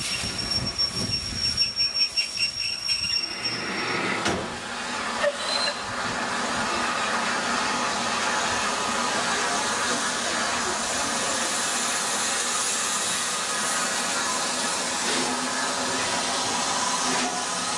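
Bulleid West Country Pacific steam locomotives standing with a steady loud hiss of escaping steam. In the first few seconds, before the hiss settles, there is uneven pulsing noise with a thin high squeal.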